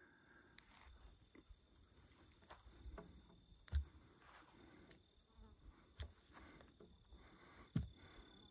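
Faint steady high-pitched trilling of insects in a grassy meadow, with a few soft thumps, the loudest about four seconds in and near the end.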